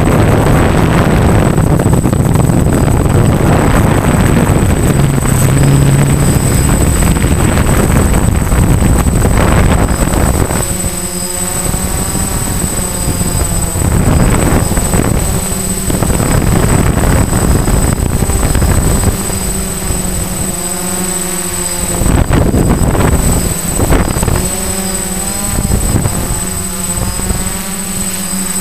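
DJI F550 hexacopter's electric motors and propellers, heard from the camera on its frame. For the first ten seconds or so, loud wind noise over the microphone mostly covers them. After that comes a steady buzzing hum whose pitch wavers as the motors change speed.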